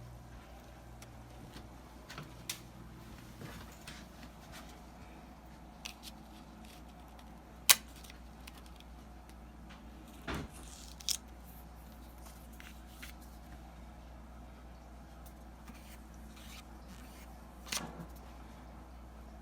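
A few scattered clicks and knocks, the sharpest about halfway through, over a low steady hum.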